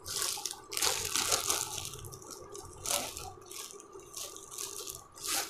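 Clear plastic packaging crinkling and rustling in irregular bursts as packed garments are handled and moved about.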